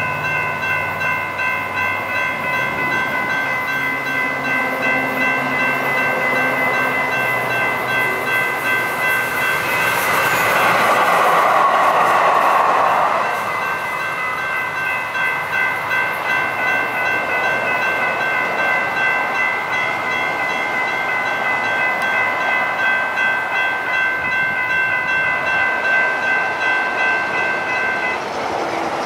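Railroad crossing warning bell ringing in a rapid, even rhythm while a light rail train runs through the crossing. The train is loudest about ten to thirteen seconds in, and the bell stops about a second before the end.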